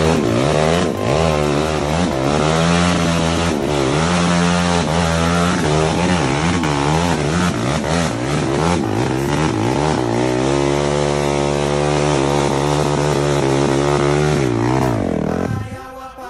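Sport ATV engine revving as the quad climbs a rutted dirt trail, its pitch rising and falling again and again with the throttle. The sound drops away briefly near the end.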